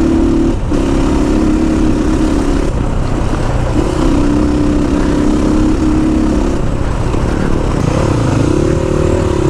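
Motorcycle engine pulling along a rough off-road track. Its note holds steady, drops away briefly a few times as the throttle is eased, and wavers and climbs near the end.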